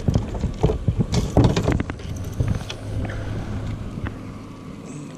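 Wind buffeting the microphone, with several sharp knocks and rattles in the first two seconds, then a low steady hum.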